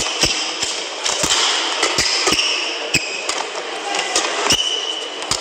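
Badminton rally: several sharp cracks of rackets striking the shuttlecock and of footfalls on the court, with brief high shoe squeaks on the court mat over the steady murmur of an indoor arena crowd.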